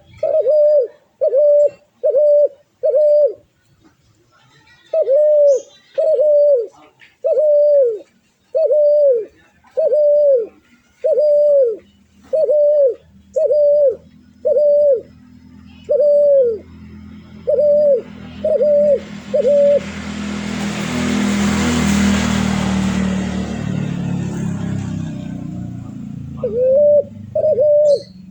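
A dove giving runs of short, quick coo notes, each a brief arched note repeated several times in a row, with a short pause after the first few. Midway through, the cooing stops while a loud rushing noise with a low hum swells and fades, then the cooing starts again near the end.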